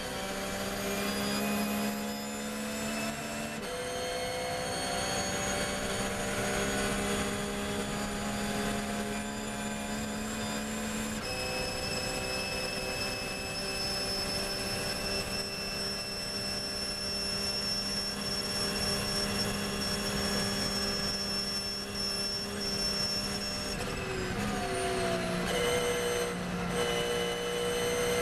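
Porsche 911 GT3 R race car's flat-six engine heard from inside the cockpit at full throttle. It changes up through the gears as speed climbs, with steps in the engine note about four and eleven seconds in, then comes off the throttle and downshifts for braking about twenty-four seconds in.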